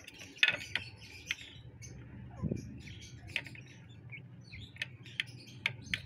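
Hens pecking food off a ceramic plate: scattered sharp beak taps on the plate, with high bird chirps between them.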